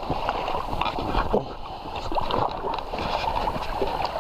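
Shallow river water rippling and splashing around an inflatable canoe, with irregular splashes as a person wades alongside it in the shallows.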